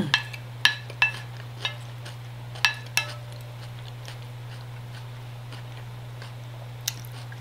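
A fork and spoon clinking against a dinner plate as salad is scooped up: about six sharp clinks in the first three seconds, then one more near the end. A steady low hum runs underneath.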